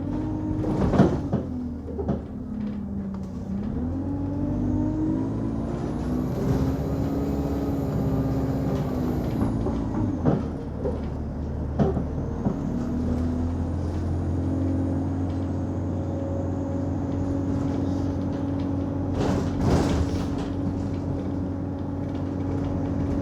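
Inside a single-deck diesel bus: the engine and drivetrain drone, the pitch dropping, then climbing as the bus pulls away, falling back and climbing again before it settles into a steady cruise, with a faint high whine rising and falling. A few sharp knocks sound near the start, in the middle and near the end.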